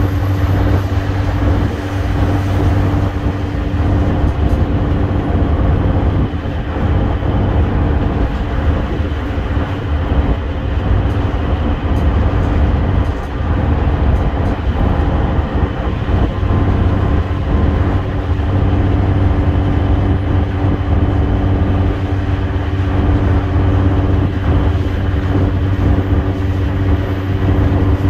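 Mercedes-Benz Citaro's OM906hLA six-cylinder diesel engine running steadily as the bus travels at road speed, heard from inside the passenger saloon as a constant low drone mixed with tyre and road noise.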